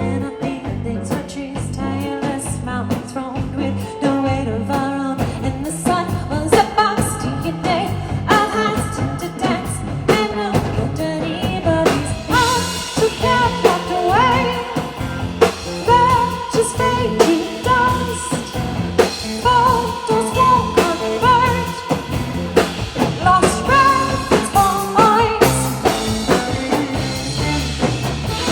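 Rock band playing live, with singing over a drum kit; a stronger melodic line comes in about halfway through.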